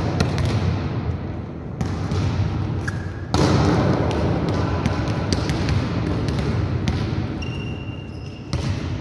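Volleyballs being struck by hand and bouncing off a hard sports-hall floor: a scatter of sharp slaps and thuds at irregular intervals over the steady, echoing background noise of a large gym.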